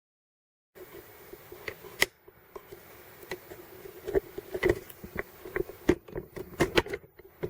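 Small metal brake parts, such as pads and pad clips, clicking and clinking as they are handled at a car's front brake caliper. After a brief silence come a dozen or so irregular sharp clicks and light knocks over a faint steady hum.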